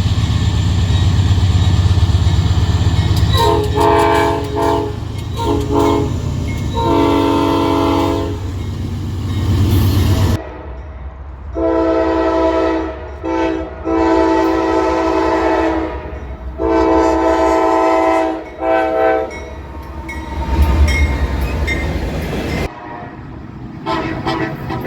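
Locomotive air horn played as a horn show: a series of long and short chord blasts. A low train rumble runs under the first ten seconds, and the sound cuts abruptly about ten seconds in and again near the end, each time to more horn blasts.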